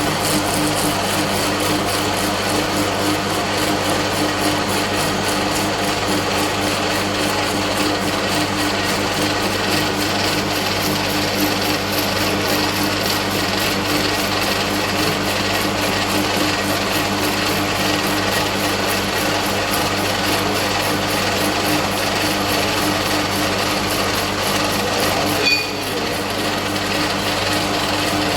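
Lathe gears running steadily, a continuous mechanical whir with a constant hum underneath. A single short knock near the end, after which it briefly runs a little quieter.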